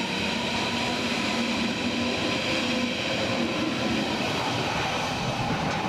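Berlin S-Bahn class 481 electric multiple unit running past along the station platform. A steady rolling noise of the wheels on the rails, with several steady whining tones from the train on top.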